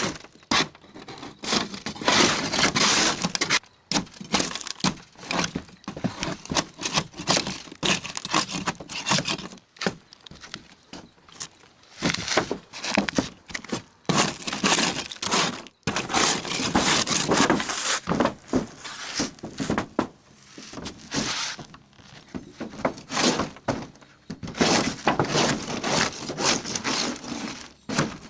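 A hand scraper scraping old, cracked and flaking tar coating off a camper roof in rapid irregular strokes, the brittle coating cracking and crumbling as it breaks away.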